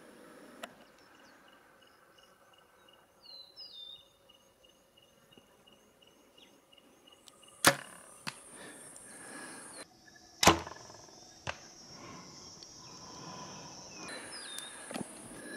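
Hoyt RX-5 Ultra compound bow shots: two sharp, loud snaps of the released string about three seconds apart, each followed by a fainter knock.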